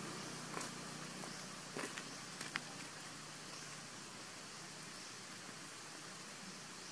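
Faint steady outdoor hiss with a few short, soft clicks in the first three seconds.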